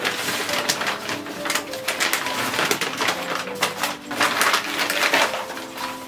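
Black plastic bin bag crinkling and rustling as it is handled and spread out by hand, a dense run of crackles throughout.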